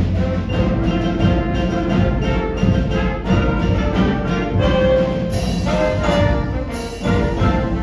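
High school concert band playing a march-like piece, brass to the fore over a steady rhythmic pulse of repeated chords.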